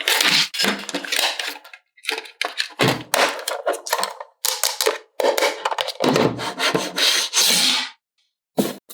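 Hands handling plastic toy pieces and packaging: a quick run of rustles, rubs and light knocks in short bursts, with brief silent gaps between them.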